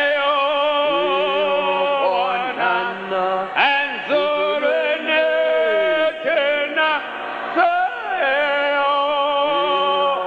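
Voices singing slow, drawn-out notes with vibrato, phrase after phrase.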